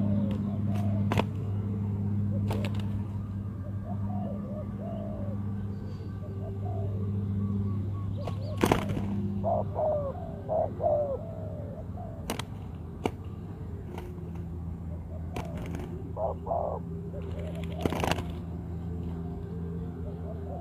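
Spotted doves cooing: short coos repeated in phrases, loudest twice in the second half. Underneath is a steady low hum, and a few sharp clicks are heard.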